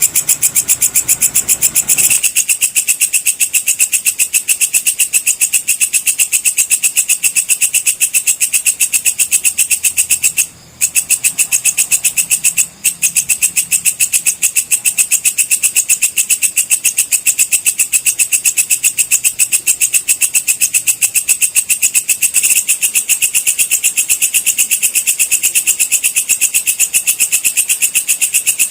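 Walang kecek (belalang kecek) insect calling: a loud, shrill, rapid run of even ticks, many a second, that goes on without let-up. It breaks off twice very briefly, about ten and thirteen seconds in.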